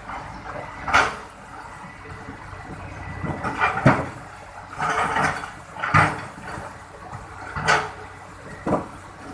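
Excavator at work: a series of irregular scrapes and clunks, one every second or two, over a steady low background.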